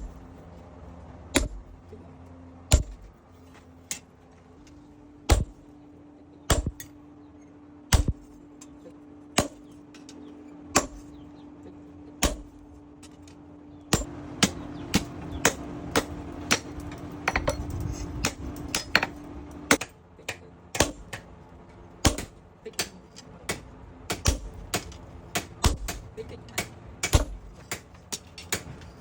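Blacksmith's hammer striking metal on an anvil. Single blows come about every second and a half at first, then quicker, irregular runs of blows in the second half, over a steady low hum.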